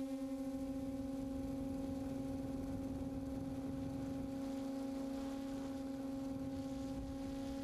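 QAV540G quadcopter's electric motors and propellers humming at a steady pitch in flight, heard from its onboard camera, with a low wind rumble underneath.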